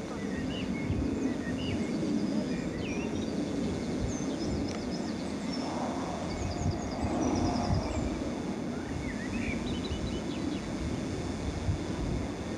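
Outdoor ambience: many small birds chirping and twittering in short calls over a steady low rumble.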